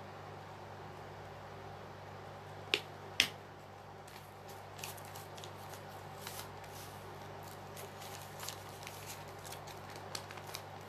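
Two sharp clicks close together about three seconds in, then soft crackling and rustling of glued magazine paper as hands press and smooth it onto a collage journal page, over a steady low hum.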